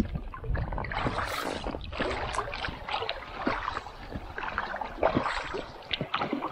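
Paddle strokes splashing in river water beside an inflatable boat, with irregular short splashes and light knocks over the steady rush of the current.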